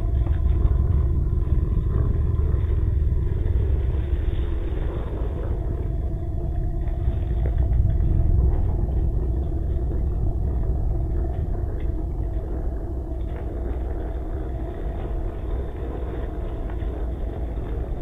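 WPL C24-1 RC truck's electric motor and gearbox running as it crawls over rock: a steady low rumble with a faint steady whine over it.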